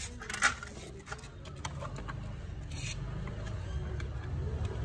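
A few small clicks and scrapes of metal parts being handled, over a low hum that grows louder toward the end.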